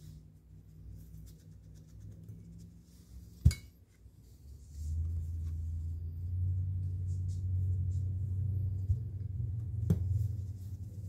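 A sharp click, then a steady low electric hum that comes on about five seconds in and grows slightly louder a second later, with a few small ticks over it.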